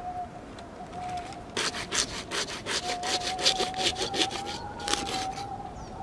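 Folding pruning saw cutting through a dead wooden branch: a run of quick rasping strokes that starts about one and a half seconds in and stops around five seconds.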